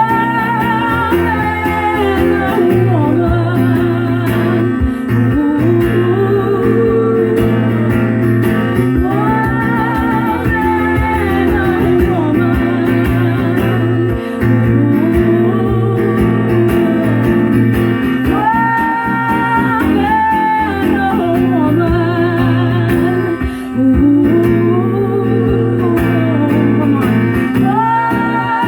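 A woman singing long, held wordless notes with vibrato over a strummed guitar, live.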